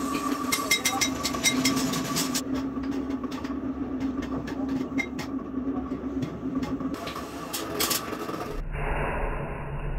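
Drill press running with its bit cutting through the steel rivets of a clutch disc under cutting oil, a steady motor hum with sharp ticks of metal and breaking chips; it is drilling out the old rivets to take off the worn friction lining. About eight and a half seconds in the sound turns abruptly duller and muffled.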